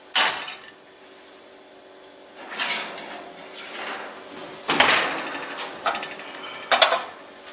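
A cast iron skillet set down on the stovetop with a sharp clank just after the start. Then come more knocks and sliding clatter of cookware on the stove, around three, five and seven seconds in.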